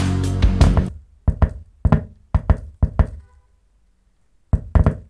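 Music from a homemade D718 transistor amplifier through a subwoofer cuts off about a second in. A series of sharp pops follows, mostly in quick pairs, as the alligator-clipped power lead is touched to the wire and pulled away.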